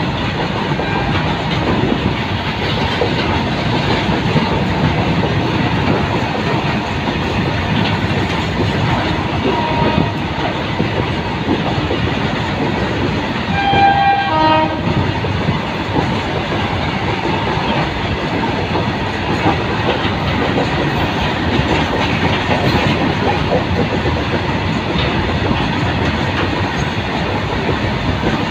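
Long freight train of open-top box wagons rolling past close by: a steady rumble with the clickety-clack of wheels over rail joints. About halfway through, a short high tone with several overtones sounds over the clatter.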